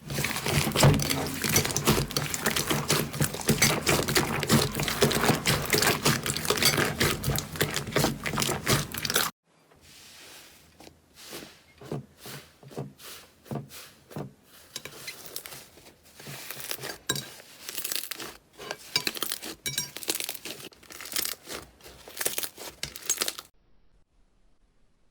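Slime being squeezed and stretched by hand: a dense, loud crackling of clicks and pops for about nine seconds, then, after a sudden cut, quieter, spaced-out clicks and pops that stop about two seconds before the end.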